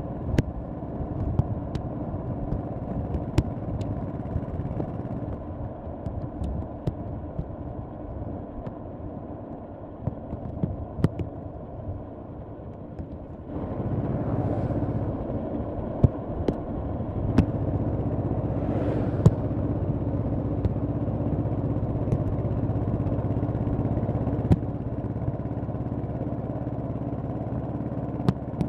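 Honda Shadow V-twin engine running on the road, quieter and lighter in the first half. About halfway through the throttle opens and the engine steps up to a louder, steadier pull, with two brief whooshes of noise shortly after.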